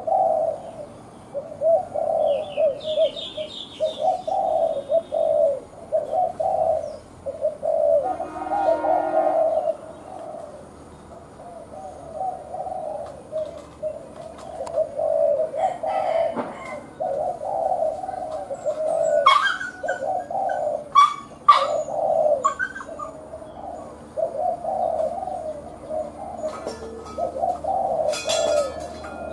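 Spotted dove cooing over and over, one low coo phrase after another with only short pauses. A few brief higher chirps from small birds come early on, and a few sharp clicks come about two-thirds of the way through.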